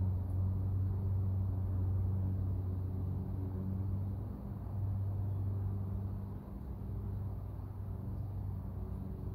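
A steady low mechanical hum, like an engine or motor running nearby, with a couple of brief dips in level.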